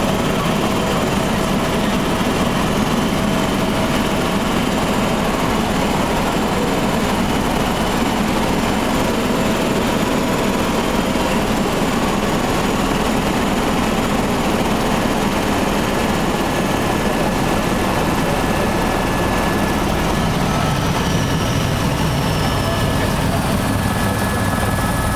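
Helicopter in flight heard from inside the cabin: a steady, loud rotor beat and engine drone with a few thin whining tones above it.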